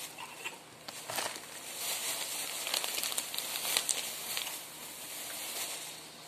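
Clear plastic bag crinkling and rustling as a hand reaches into it, with a couple of sharp clicks about a second in and the crinkling thickest in the middle before fading near the end.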